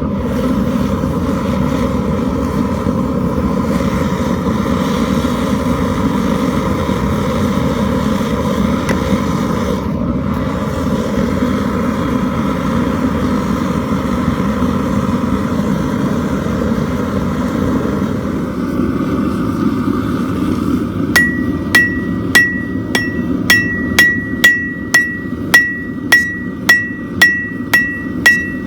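A forge running with a steady roar; about 21 seconds in, a hammer starts striking steel on a steel anvil, about two blows a second, each with a bright ring from the anvil.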